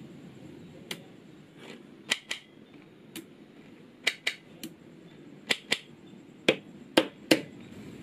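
Small magnetic balls snapping together as strips of them are laid onto a block: about a dozen sharp clicks, several in quick pairs.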